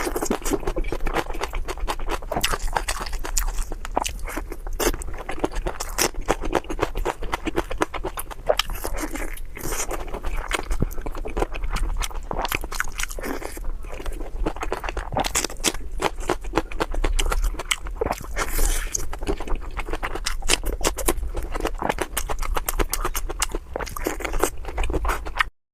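A person chewing food close to the microphone: a dense, continuous run of short clicky mouth sounds that cuts off suddenly near the end.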